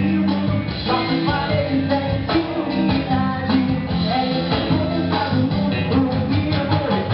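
A live band playing an upbeat song, with drum kit, bass and guitar and a singing voice.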